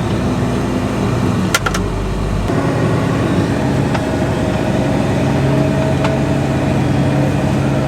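Tractor engine running steadily under load, heard from inside the cab, while it pulls a half-loaded grain cart through deep mud. A couple of sharp clicks come about a second and a half in.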